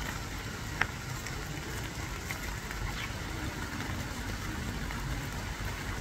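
Steady background noise with faint scattered ticks, and one sharp click a little under a second in.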